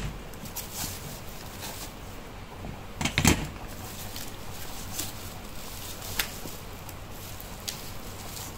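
Thick grey clay bars being set down on a steel plate, with one solid knock about three seconds in. Plastic wrapping is handled, with a few small clicks and crinkles.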